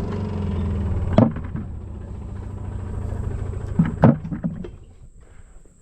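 Tractor engine running steadily, with a sharp knock about a second in and another about four seconds in; the engine sound then dies away near the end.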